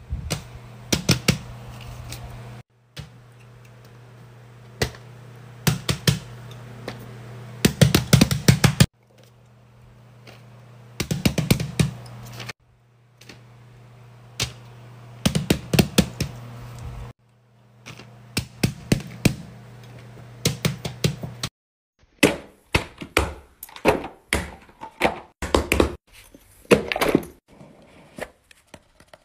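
Bursts of quick clicking and tapping from fidget toys being handled, in a run of short separate clips; a steady low hum runs under the first several, and the tapping gets denser near the end.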